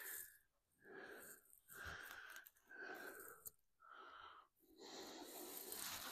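A person's faint, wheezy breathing: five quick breaths about a second apart, each with a thin whistle in it, then a longer breath near the end.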